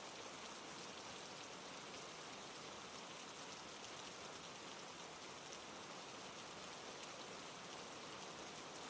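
Steady, soft rain falling on a surface, a constant even patter without thunder.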